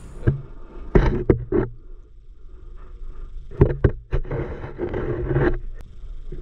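Sound from an underwater camera in a river: muffled knocks and scrapes as the camera is moved along the riverbed. There is a cluster of sharp knocks about a second in, more a little past the middle, then a few seconds of rushing water noise.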